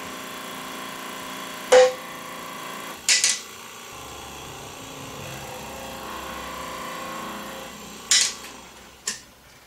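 Metal clanks from a shop press and the 1957 GMC water pump set in it as the pump is pressed apart. One sharp, ringing clank comes about two seconds in, with a few lighter knocks later, over a steady shop hum that fades near the end.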